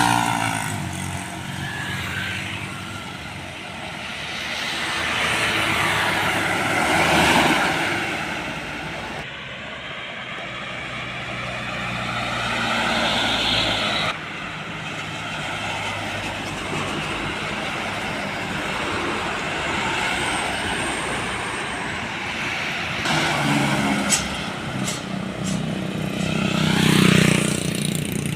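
Heavy trucks passing on a road one after another, engine noise swelling and fading as each goes by, several times.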